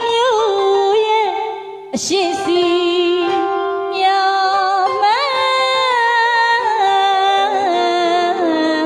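A woman singing a Burmese song to piano accompaniment, with long held notes that slide and waver. She breaks off for a breath about two seconds in.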